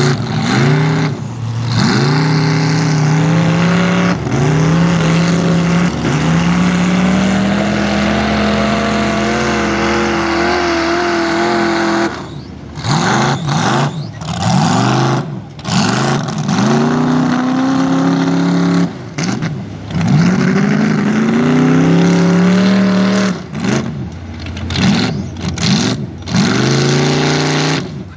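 Mud truck's engine revving hard while driving through a mud bog. It is held at high revs for about the first twelve seconds, then blipped over and over, the pitch climbing and dropping every second or two as the throttle is opened and let off.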